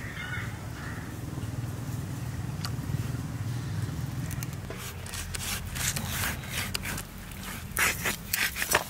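Outdoor ambience: a steady low rumble, with a bird calling briefly at the start. From about five seconds in comes a series of short rustling and scraping noises, the loudest near the end.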